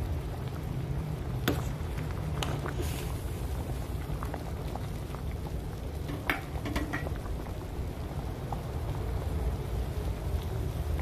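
Pot of winter melon soup boiling hard: steady bubbling over a low rumble, with a couple of sharp clicks, one about a second and a half in and one about six seconds in.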